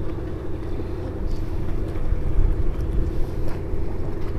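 Wind rumbling on the microphone over the steady drone of a motorboat engine out on the water.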